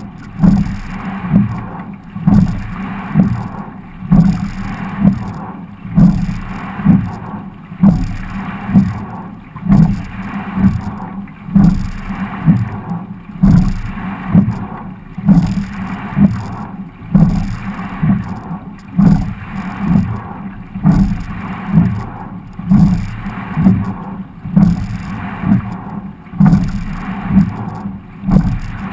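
A quad scull being rowed at a steady rate, about one stroke every two seconds. Each stroke brings a knock and a surge of water along the hull, over a continuous wash of water.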